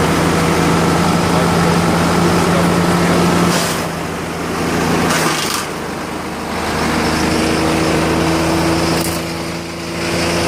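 Engine-driven chipper-shredder running hard as it chips and pulverizes dried coconut palm fronds, a steady loud mechanical run. Its level dips briefly about four, six and ten seconds in, and the engine's pitch shifts slightly after the second dip.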